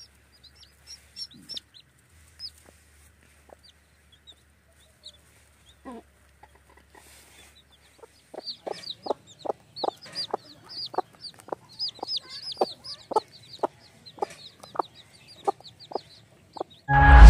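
A mother hen clucking in a rapid, regular run of a few clucks a second, over the high peeping of her young chicks; before that, only scattered peeps and the odd cluck. Loud music cuts in right at the end.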